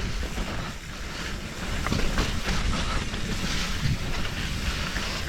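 Wind buffeting the microphone with a low rumble while riding a mountain bike, with scattered small clicks and rattles.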